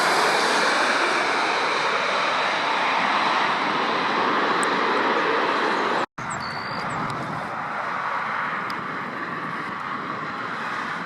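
Heavy jet aircraft engines, a steady loud rush that slowly eases off. It cuts out abruptly about six seconds in, then a quieter rush of engine noise carries on.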